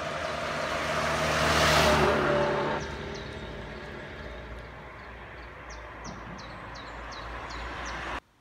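A car drives past close by, its engine and tyre noise swelling to a peak about two seconds in and then falling away. Birds chirp a few times over a low rumble afterwards, and the sound cuts off suddenly near the end.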